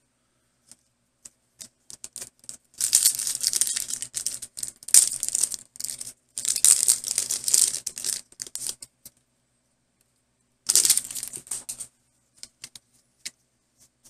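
Foil Pokémon booster pack wrapper crinkling and tearing as it is opened, in three loud bursts, with light clicks and taps of the cards being handled before and after.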